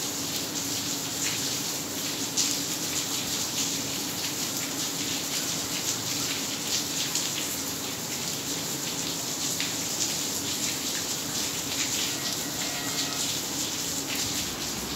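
Heavy rain falling into standing water on a flooded paved yard: a steady hiss, dotted with the splashes of single drops.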